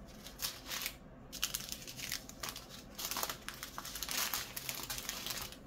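Small plastic sachets of diamond-painting drills crinkling and rustling as they are handled and sorted, in uneven bursts that are busiest in the second half.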